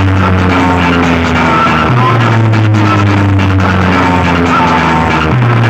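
Music played very loud through a DJ sound-box system. A heavy bass note restarts about every two seconds under a melody that steps downward.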